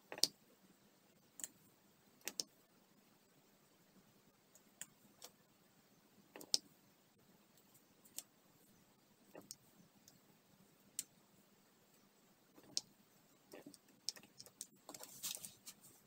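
Diamond-painting drill pen picking up and pressing small resin drills onto the adhesive canvas: faint, irregular small clicks and taps a second or two apart, with a quick run of clicks near the end.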